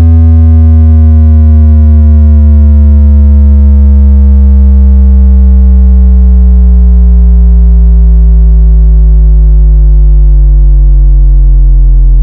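Very loud synthesized bass tone gliding slowly and steadily downward in pitch, with a stack of overtones above it: an electronic bass sweep played as a speaker sound check.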